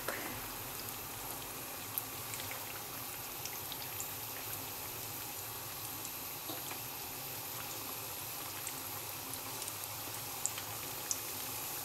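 Hot oil sizzling steadily around pirozhki shallow-frying in a pan, with scattered small pops and crackles.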